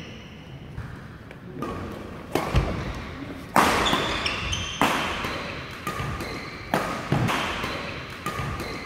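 Badminton doubles rally: rackets striking the shuttlecock with sharp cracks about once a second, starting about two seconds in, with shoes squeaking on the court floor between shots. The hall's echo trails after each hit.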